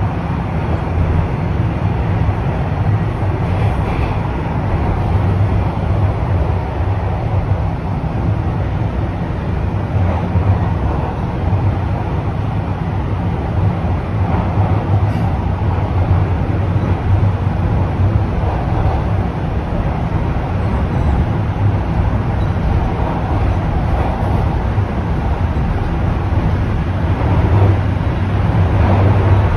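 A Toronto Rocket subway train on TTC Line 1 running at speed, heard from inside the car: a steady low rumble of wheels on the rails and traction motors, growing slightly louder near the end.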